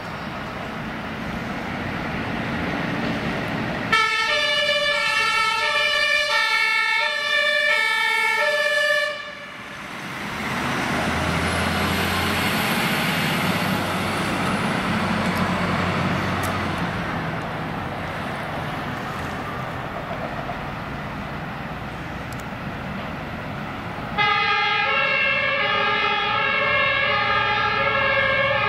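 German fire-brigade two-tone siren (Martinshorn) sounding its alternating high and low notes from about four seconds in, cutting off abruptly around nine seconds. Then the deep diesel engine of a turntable ladder fire truck passes close, running under load. The two-tone siren returns loud near the end.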